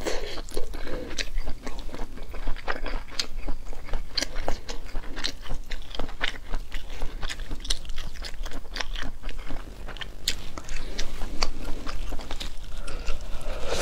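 Close-miked eating of orange seafood pieces: biting and wet chewing, with frequent crisp clicks and crackles throughout.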